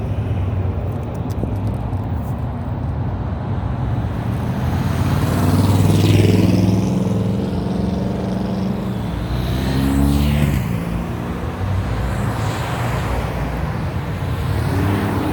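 Cars with loud exhausts pulling away and driving past one after another, engines rumbling steadily. The revs swell and rise as cars go by, about five seconds in, around ten seconds, and again near the end.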